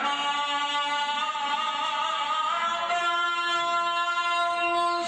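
A man chanting unaccompanied through a microphone, holding long notes; the pitch steps up about three seconds in.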